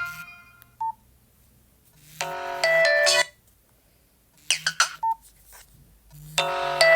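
Nokia 113 ringtones being previewed one after another. A tune dies away and a short beep sounds. A second ringtone plays for about a second and cuts off, then come a few clicks and another short beep. Near the end a new ringtone starts.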